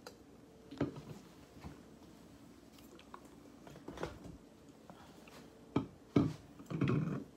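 Plastic hand sanitizer spray bottles being set down on and moved about a granite countertop: a few scattered knocks and clunks with handling noise between them. The knocks come closer together near the end.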